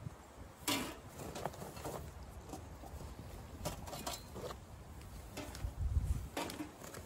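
Handling noise from a camp-stove chimney kit: scattered light knocks and clinks of metal stove-pipe sections and the crinkle of a plastic bag as they are packed into a carry bag.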